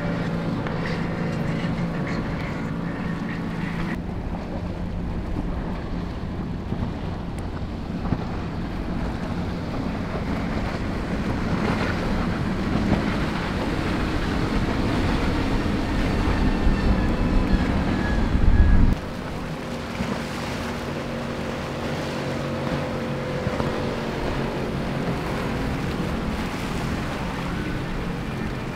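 Powerboats running past at speed one after another: engines running under the rush of water and spray from the hulls, with wind on the microphone. The sound builds to its loudest as one boat passes close, about two-thirds through, then drops off suddenly to a quieter boat.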